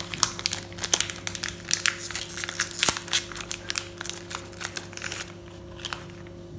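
Plastic wrapper of a biscuit packet crinkling and rustling in the hands as the packet of crackers is opened and a cracker pulled out; the crinkling stops about five seconds in.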